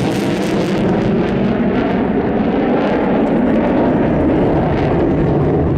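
JASDF F-15 fighter's twin jet engines running in afterburner as it pulls a climbing turn: a loud, continuous jet roar. The hiss thins after about a second while the deep rumble grows.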